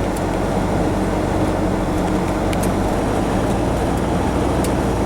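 Pickup truck driving along at a steady pace: an even engine hum with road noise.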